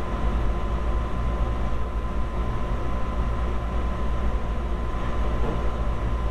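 Steady low rumble of background room or equipment noise with a faint constant high hum; no distinct event.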